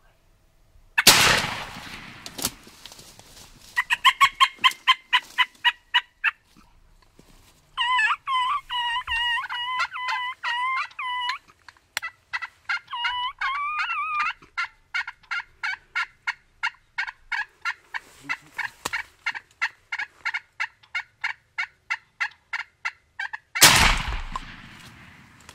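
Wild turkey toms gobbling and calling in long rapid runs of pitched notes: a quick burst, then a warbling stretch of about three seconds, then evenly spaced notes about three a second. Two loud shotgun blasts with a fading ring frame the calling, one about a second in and one near the end.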